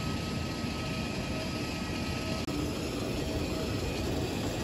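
Steady noise of a parked jet airliner running on the apron: a constant rush with a faint high whine. It drops out for an instant about halfway through.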